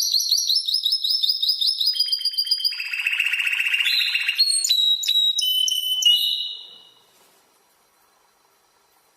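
Spanish timbrado canary singing: a fast trill of quick repeated notes slowly sinking in pitch, then a lower rolling trill, then a few separate held whistled notes. The song stops about two-thirds of the way in.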